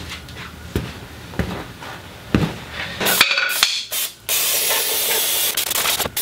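A few light knocks, then an aerosol can of brake cleaner sprayed onto a truck's rear disc brake: a loud hiss starting about three seconds in, with two short breaks, then a long continuous spray.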